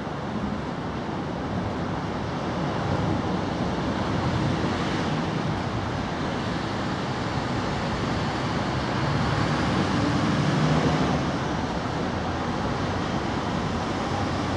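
Steady background rumble and hiss, a little louder around the middle and again about ten seconds in.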